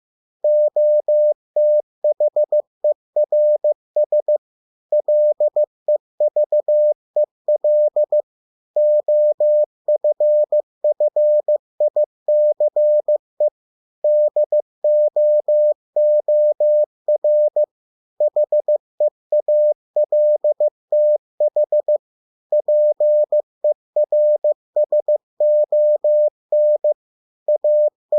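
Morse code sent as a single steady beep tone, keyed on and off in dots and dashes at 15 words per minute, spelling out English words with short pauses between them.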